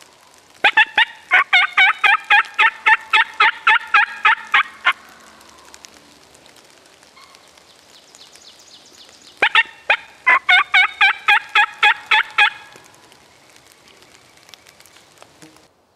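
Turkey yelping: two fast runs of loud, evenly spaced notes, about five a second, each run lasting three to four seconds with a pause of several seconds between them.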